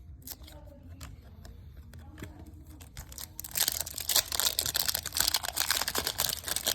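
Wrapper of a 1999 Topps Chrome baseball card pack crinkling loudly as it is torn open and pulled apart, starting about three and a half seconds in after quiet card handling with a few light clicks.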